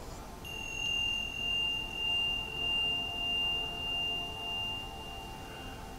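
A single high, pure, steady tone that starts about half a second in and holds unchanged, over a fainter lower hum that swells and fades in slow even pulses.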